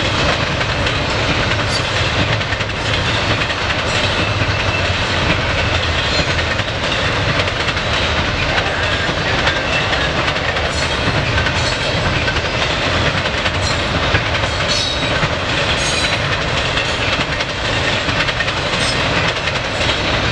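Double-stack intermodal freight train passing steadily: a continuous rumble with the clickety-clack of wheels over the rails and a few sharp clicks from the cars.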